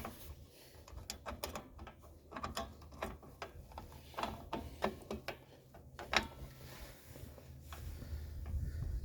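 Irregular metallic clicks and clinks of rear drum brake hardware (shoes, springs and adjuster) being handled and worked into place while a spring is being hooked, over a low steady hum that grows louder near the end.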